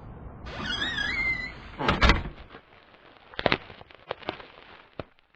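A high, wavering squeak lasting about a second, then a loud thud, then a few light clicks or knocks.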